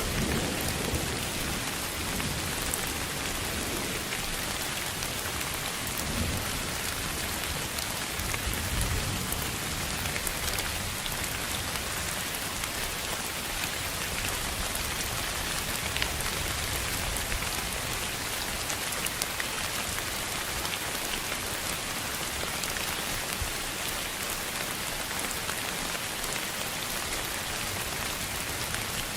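Steady, even hiss of sleep noise filling the whole range of pitch, with faint low rumbles about a second in and again around nine seconds in.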